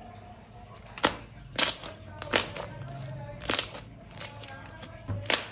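Slime being handled and mixed, giving about six sharp, irregular clicks and pops over a low background.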